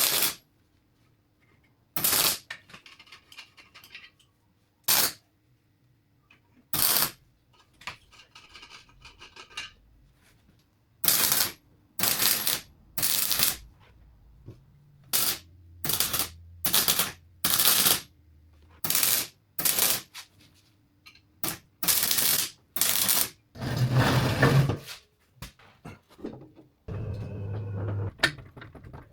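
Workshop tool noise during exhaust fabrication: about twenty short, loud bursts come one after another at irregular gaps, each under a second long, with a longer one just before the end.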